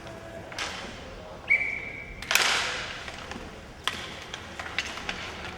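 Inline hockey play in an echoing arena: sharp clacks of sticks and puck, with one loud bang that rings on for about a second, as of the puck hitting the boards. Just before that bang comes a brief, steady high tone.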